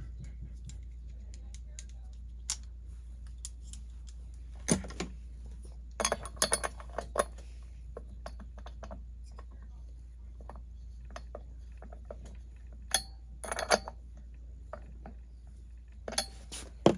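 Metal hand tools and sockets clinking and clattering in scattered short bursts, as a socket is swapped and fitted to the flywheel nut of a Husqvarna 288 XP chainsaw.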